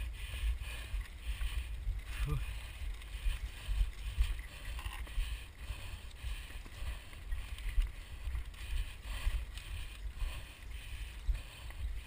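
Mountain bike riding over a rough dirt forest trail, heard from a rider-mounted camera: a steady low rumble of wind and movement on the microphone, with uneven crunching and rattling from the tyres and bike over the ground.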